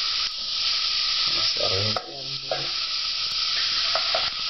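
Minced garlic sizzling steadily in hot oil in a stainless steel pot as it starts to turn golden, stirred with a wooden spoon, with a couple of brief clicks.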